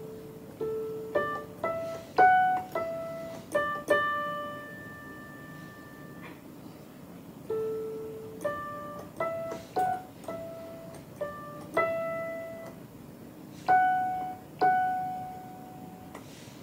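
Digital piano played one note at a time by a beginner: a slow, simple single-line melody with short pauses between notes, its opening phrase starting over about halfway through.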